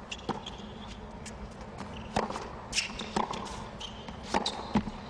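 Tennis rally on a hard court: sharp racket strikes and ball bounces about every second, with the short high squeaks of sneakers sliding on the court between shots over a hushed crowd.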